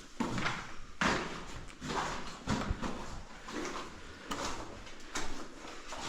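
Repeated short scuffs and scrapes, about one or two a second, of people moving over rock and debris in a mine passage.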